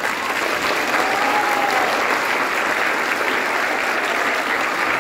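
Audience applauding, dense and steady, right after a string orchestra piece ends.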